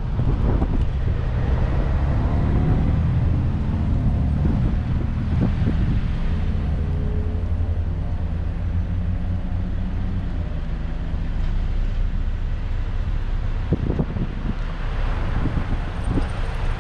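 Jeep Rubicon driving on a paved road: steady engine and tyre rumble, with a few brief knocks from the ride over the road.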